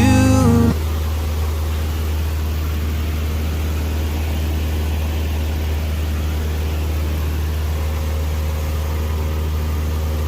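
A guitar-backed song cuts off within the first second. After it comes the steady drone of a Cessna light aircraft's piston engine, a constant low hum with a noisy rush above it.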